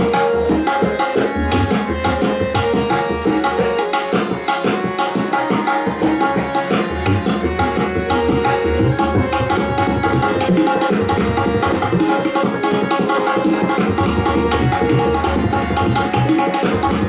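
Tabla solo in teentaal: fast, dense strokes on the dayan, with deep bayan bass strokes that come and go, over a harmonium playing the repeating nagma (lehra) melody.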